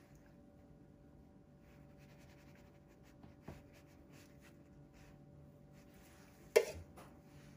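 Metal spoon scraping softly as thick persimmon jam is spooned onto a tart base in a cake tin, with a light tap about three and a half seconds in. Near the end comes a single sharp metallic clink of the spoon against a container.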